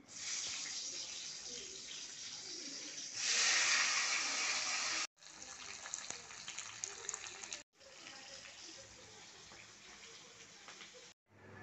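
Steady hissing in several short clips that cut off abruptly, loudest about three to five seconds in. In the middle clip, onion and capsicum pieces fry in a pan with a sizzle and many small crackles.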